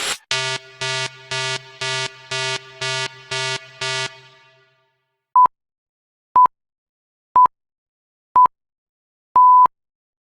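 Two electronic beep effects. First, eight buzzy tones about two per second, like a busy signal. Then four short pure pips a second apart and a longer final pip, like a time-signal countdown.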